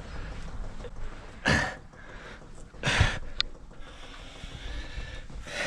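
Diesel heater fuel dosing pump being primed, pulsing faintly under a low background, with two louder breath-like bursts about a second and a half apart.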